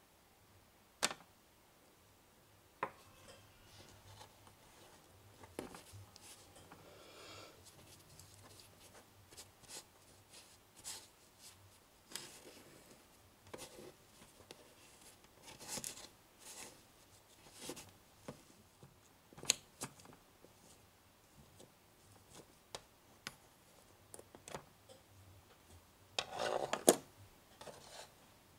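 Small plastic spoon scraping and tapping against a little glass bowl while stirring Konapun powder and water into a dough, with scattered light clicks. There is a louder clatter near the end.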